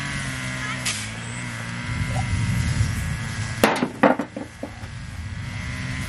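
An engine running steadily, its pitch dropping a little about a second in, with a few sharp knocks a little past the middle.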